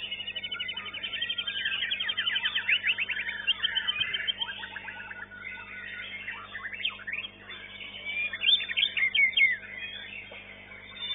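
White-rumped shama singing: fast trills of rapidly repeated high notes, then sharp rising and falling whistled notes, loudest in a burst near the end.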